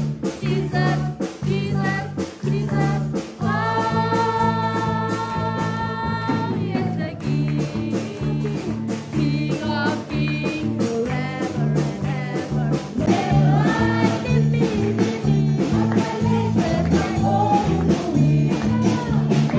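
Live church worship band played through a small PA: women's voices singing the lead into microphones over electric guitar and a steady, repeating bass line. One long note is held for about three seconds early on.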